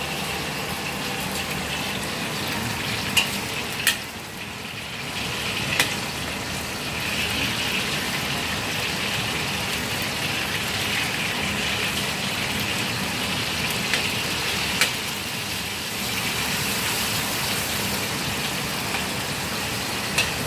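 Salmon pieces and skin sizzling in hot oil in a black wok, a steady frying hiss that dips briefly about four seconds in. A few sharp clicks of a metal wok spatula striking the wok.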